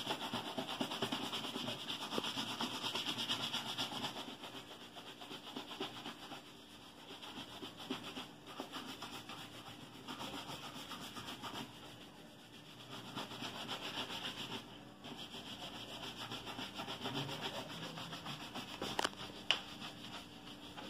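A shoe brush scrubbed back and forth in rapid strokes over a polish-coated leather military boot, a fast steady rasping. It is louder for the first few seconds, eases off in the middle and picks up again, with a single sharp click near the end.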